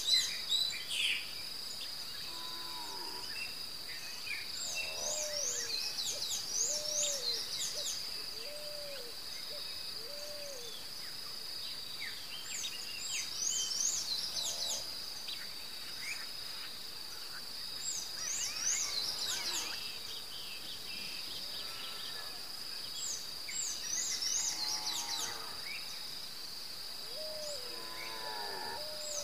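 Outdoor ambience: insects keep up a steady high trill while birds call over it. There are short high chirping phrases every few seconds and, twice, a run of four or five lower, evenly spaced notes.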